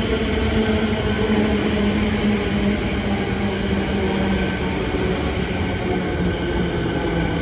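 Electric suburban train running: a steady rumble with a low hum that drops slightly in pitch about three seconds in.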